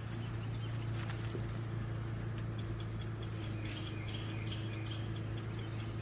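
Honeybees humming steadily around an open hive during a frame inspection. From about two seconds in, a rapid even high ticking joins, about four or five clicks a second.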